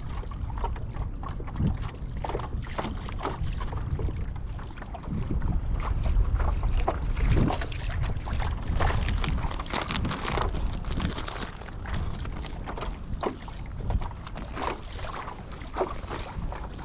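Wind buffeting the microphone over water splashing and lapping against the hull of a Hobie Lynx pedal kayak as it moves through choppy water, with many short, irregular splashes.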